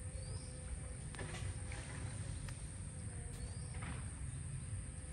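Outdoor ambience: a steady high-pitched insect drone, a bird's short rising chirp twice, and soft splashing of water as a man wades chest-deep through it.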